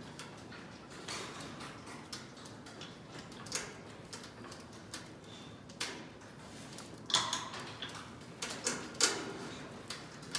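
Backpack sprayer and tether chains in a cattle stall: scattered clicks and metallic knocks, with two short hissing bursts about seven and nine seconds in as the bull is sprayed.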